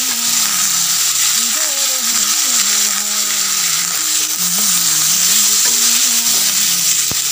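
Cut wax gourd pieces sizzling steadily in hot oil in a karahi, freshly added to the pan and being stirred.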